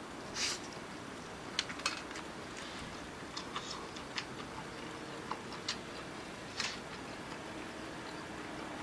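Small wood fire crackling in a mini fire pit: irregular sharp snaps and pops, with a few short hissy puffs, over a faint steady hiss.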